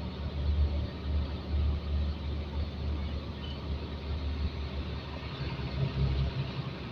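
Truck diesel engine running under way, heard from inside the cab as a steady low drone over road and cab noise. Its note changes about five seconds in.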